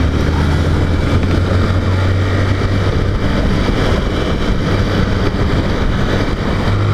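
Motorcycle engine running steadily while riding, under wind and road noise on the rider's microphone; the engine note steps up in pitch near the end.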